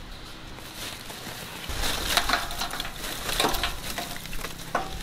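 Lump charcoal pouring from a sack into a metal barrel grill, the pieces clattering against each other and the grill. The clattering picks up about two seconds in.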